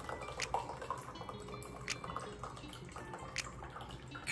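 Shaken margarita dripping and trickling as it is poured out of a cocktail shaker, with a few light clicks about every second and a half.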